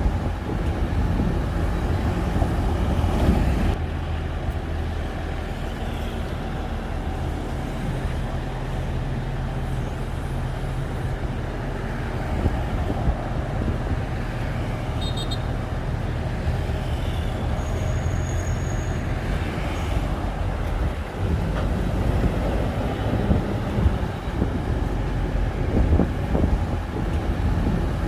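Shantui bulldozer's diesel engine running steadily, its low note shifting a few times, with a few faint clicks over it.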